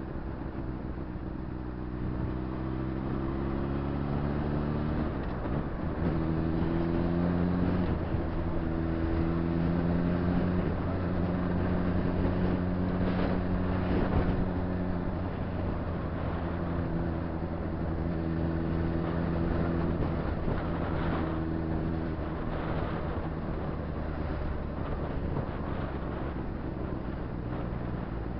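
Honda CBR600RR inline-four engine running while riding, its note climbing over the first few seconds, then changing pitch about five seconds in and holding mostly steady with small steps up and down, over wind and road noise.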